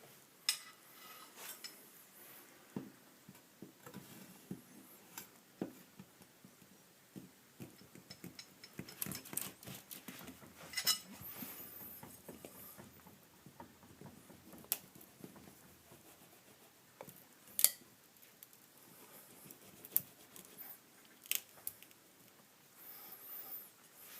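Metal putty knife and pry tool working wooden glass stops loose from a door frame: scattered scraping, tapping and clicking of metal on wood, with one sharp click about two-thirds of the way through.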